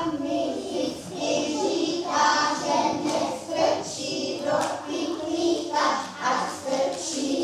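A group of young children singing a song together, with a few hand claps mixed in.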